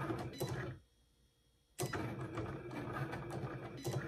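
Cricut Explore Air 2 cutting machine running mid-cut on cardstock, its motors humming with repeated clicks. It stops for about a second near the start, then starts up again.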